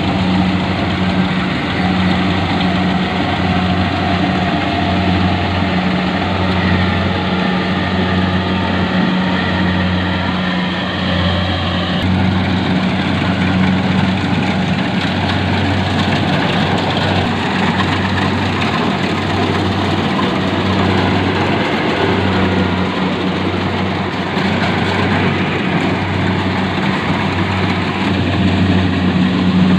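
Rice combine harvester running steadily: a loud low engine hum that swells and fades in a slow, even throb, with the clatter of the machine's working parts.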